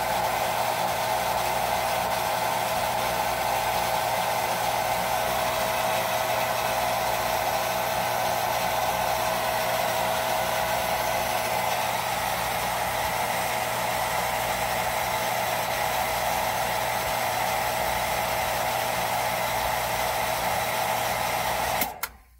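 Shallow-well jet pump motor running steadily with a constant whine as it pumps up the pressure tank, then shutting off suddenly near the end as the pressure switch reaches cut-out. It cuts off cleanly, with no clicking from the switch.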